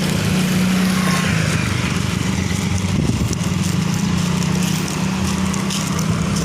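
An engine or motor running steadily, a low droning hum whose pitch steps slightly about a second in and again around three seconds.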